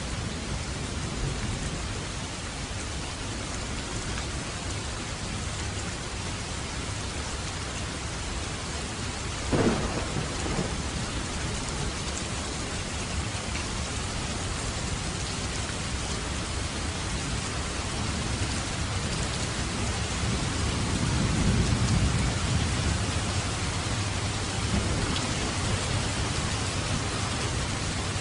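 Steady heavy rain falling, with a sharp thunder crack about a third of the way in and a low rolling rumble of thunder later on.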